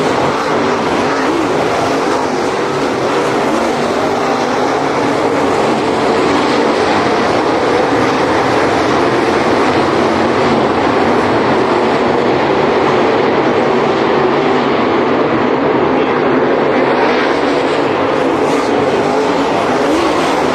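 A field of dirt late model race cars at racing speed on a dirt oval, their V8 engines a loud, steady, overlapping din.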